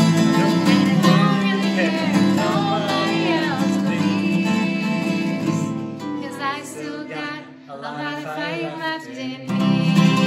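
Acoustic guitar strumming with a woman singing a song. About six seconds in the strumming thins out, leaving mostly her wavering voice, and the full strumming comes back in near the end.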